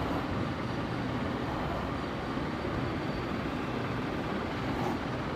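Steady, even background rush of room noise that holds at the same level throughout.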